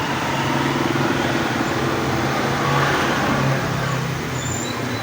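A motor vehicle's engine passing by, swelling to its loudest about three seconds in and then fading, over a steady low hum.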